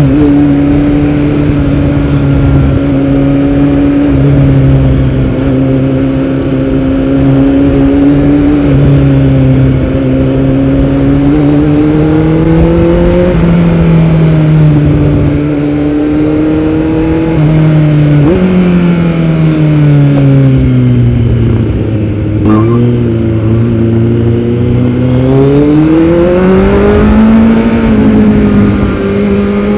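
Kawasaki Z900's inline-four running through a Yoshimura R77 full-system exhaust while the bike is ridden, its pitch rising and falling with the throttle. The pitch jumps up about two-thirds of the way in, sinks as the bike slows, then climbs again near the end as it picks up speed.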